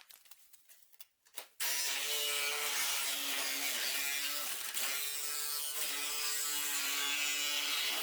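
Power saw with a toothed blade running and cutting through car-body metal, a steady loud mechanical buzz starting abruptly about a second and a half in, after a few faint clicks.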